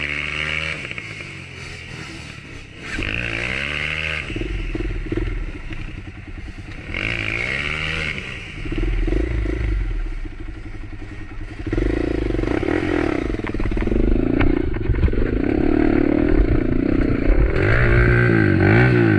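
Small motorcycle engine revved repeatedly, its pitch climbing and dropping several times as the bike is worked over a rough, rocky trail; it runs loudest and steadiest in the last several seconds.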